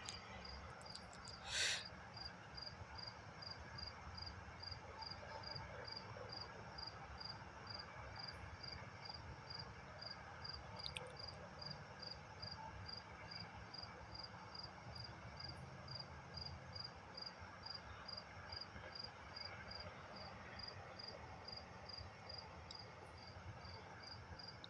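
A cricket chirping steadily in the background, short high even chirps at a little over two a second, with a faint low hum underneath. One brief rustle about two seconds in.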